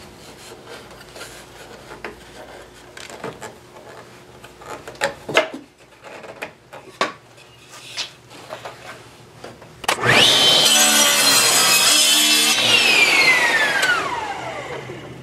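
SawStop table saw switched on with a fast-rising whine, running while it cuts through a wooden segmented ring held in a sled jig, then switched off and spinning down with a steadily falling pitch. Before it, light knocks and clicks of wooden jig parts being handled. The woodworker feels that a sharper blade would have helped the cut.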